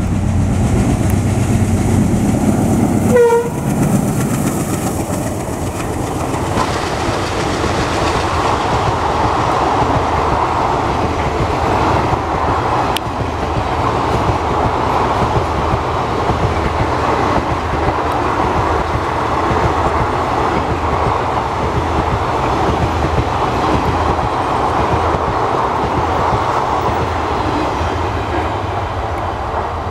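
ALCO diesel locomotive passing at speed with its engine running loudly, giving a short horn blast about three seconds in. Its passenger coaches then roll past with steady wheel clatter on the rails.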